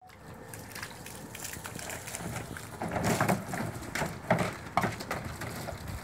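Water running from a garden hose onto wet paving, then a puppy splashing about in a plastic paddling pool, with irregular splashes and knocks on the plastic from about three seconds in.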